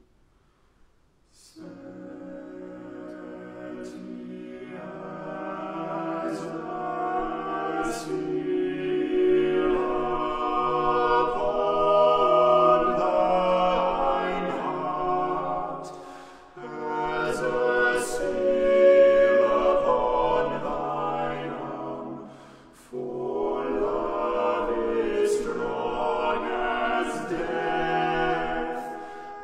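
Six-voice male a cappella ensemble singing a slow choral piece. After a short rest, the voices come in about a second and a half in and swell, breaking off briefly twice for breaths between phrases.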